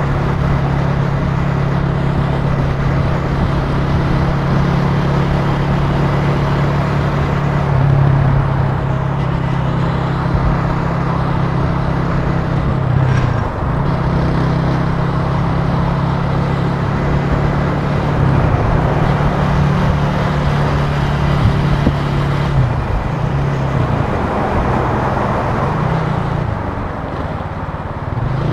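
Italika TC300 motorcycle engine running under way, a steady low engine note with wind and road noise, the note dipping briefly about thirteen seconds in and shifting again past twenty seconds as the throttle changes.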